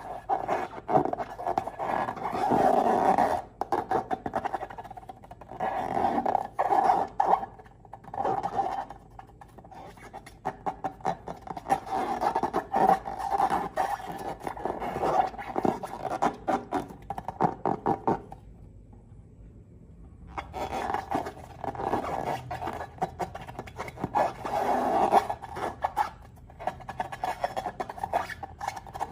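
Slime being squished and worked by hand: surges of sticky crackling and small pops, pausing for a couple of seconds about two-thirds of the way through.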